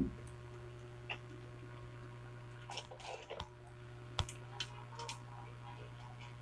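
Low steady electrical hum with a few faint scattered clicks and rattles as a CRT TV's printed circuit board is handled.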